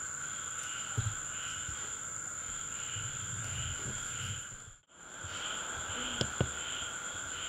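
Crickets chirping: a continuous high trill with a regular chirp about twice a second. A few soft knocks of movement sound underneath, and the sound drops out briefly about five seconds in.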